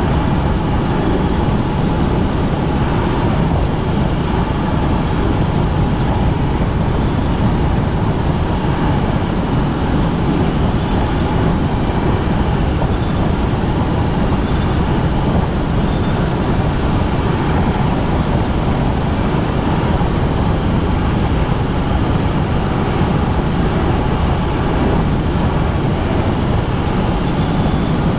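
Helicopter in flight: loud, steady engine and rotor noise.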